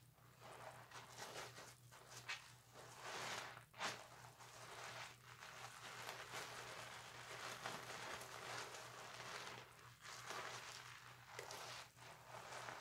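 Loofah scrubbing a wet bar of soap to work up lather: faint, continuous scratchy rubbing in uneven strokes, with a sharper click about four seconds in.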